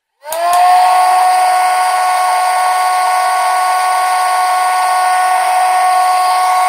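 Small electric motor switched on: it spins up with a quick rising whine, then runs at a steady high-pitched whine.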